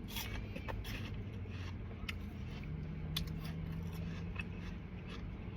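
Close-up chewing of crunchy food: irregular, crisp crunches and clicks.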